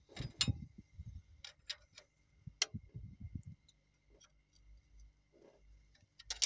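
Irregular metallic clicks and clinks of hand tools on the valve gear of a Cummins NT855 diesel engine during tappet adjustment. Low bumps come with the clicks in the first few seconds.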